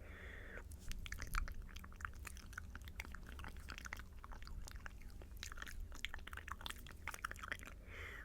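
Earrings handled close to the microphone: a dense, irregular run of small clicks and taps, with a short breathy hiss at the start.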